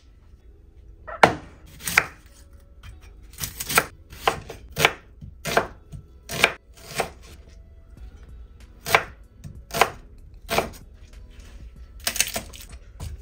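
Kitchen knife cutting an onion on a wooden chopping board: separate knocks of the blade on the board, about one every half second to a second, with a short pause just past the middle.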